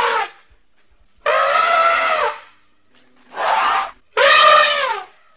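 Elephant calf giving a run of high hooting calls: the tail of one just at the start, then three more, each about half a second to a second long and dropping in pitch at its end.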